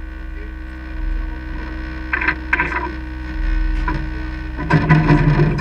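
A steady low hum with muffled men's voices from below: a short exchange a little after two seconds in, then louder talk near the end.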